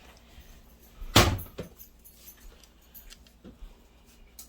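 Kitchen clatter while food is served onto a plate: one loud clunk about a second in, then a few light clicks and clinks.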